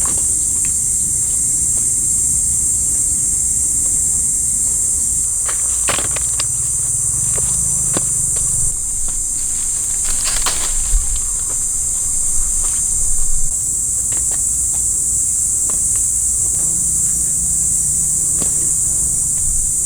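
Steady, loud, high-pitched insect chorus shrilling without a break, its level stepping up and down a few times. Scattered sharp clicks and rustles sound over it, clustered about six and ten seconds in.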